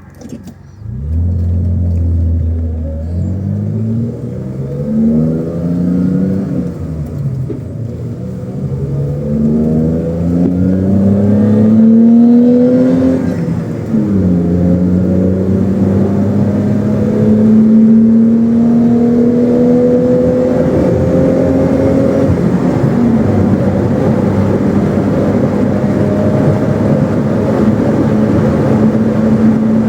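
BMW E30 325i's 2.5-litre straight-six engine pulling the car up through the gears of its manual gearbox. The pitch climbs and falls back at each upshift, several times in the first half, then holds a steady cruise.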